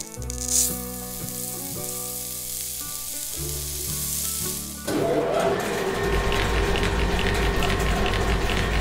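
Cartoon brewing sound effects. First a steady hiss as malt grain pours into a crusher, over light music. About five seconds in, this gives way to a louder, steady machine noise with a deep rumble.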